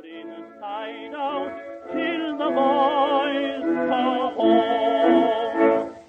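Music: a classical, operatic-style voice singing with a wide vibrato, building in loudness and then dropping away right at the end.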